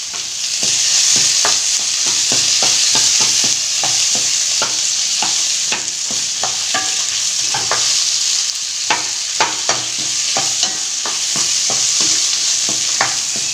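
Chopped chayote, shallots and tomato frying in oil in a kadai while being stirred: a steady sizzle with many short knocks and scrapes of the stirring utensil against the pan.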